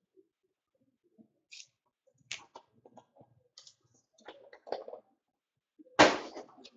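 Faint, scattered clicks and rustles of trading cards being handled, followed by a short loud burst near the end.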